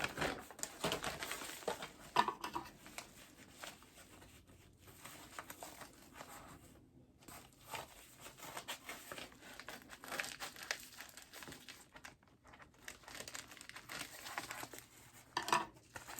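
Packaging being handled and opened by hand: irregular crinkling and rustling with some tearing, louder bursts about two seconds in, around ten seconds and near the end.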